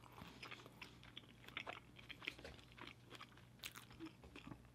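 Faint mouth sounds of a person chewing fried fast food, with scattered soft clicks and small crunches.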